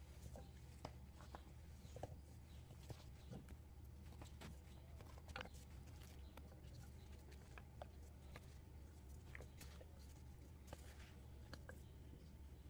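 Faint, scattered clicks and taps of diced vegetable pieces being set into a metal cake pan around a whole chicken, over a low steady hum.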